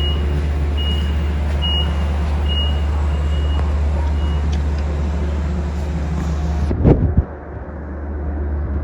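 A Long Island Rail Road diesel locomotive running at a station with a steady low engine drone, while short high beeps repeat a little more than once a second for the first four seconds or so. About seven seconds in there is a brief loud burst of noise, and the sound is quieter afterwards.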